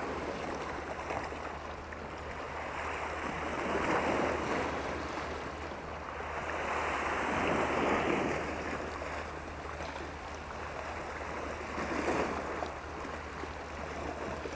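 Sea waves washing against rocks at the shoreline, swelling and easing three times, over a steady low rumble.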